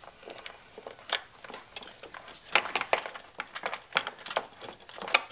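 Irregular light metallic clicks and clinks of small fasteners and a hand tool being handled while reassembling the battery housing, with a few sharper clicks near the middle and the end.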